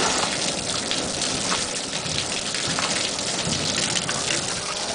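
Water spraying steadily from a garden hose and splashing over calves' muzzles and into a metal stock tank.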